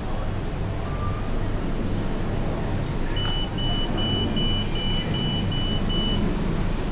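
Coconut vending machine beeping: about eight short, high, evenly spaced beeps over some three seconds while it delivers the opened coconut to its pickup hatch. A steady low hum and street noise run underneath.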